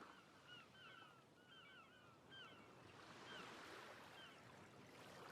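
Faint seashore ambience: seagulls calling in many short cries, thick at first and then sparser, over a soft wash of surf.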